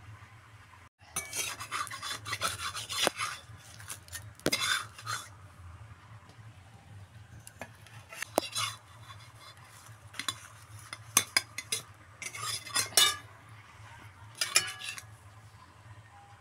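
A spatula scraping and clinking against a wok-shaped pan and a steel plate in irregular bursts, with sharp clicks, as cooked rice-flour pancakes are loosened and lifted out. A low steady hum lies underneath.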